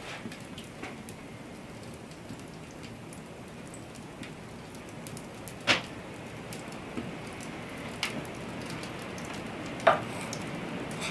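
Wood fire crackling in an open hearth, with scattered small pops. A sharp knock sounds about halfway through, and another near the end as a knife strikes a wooden cutting board.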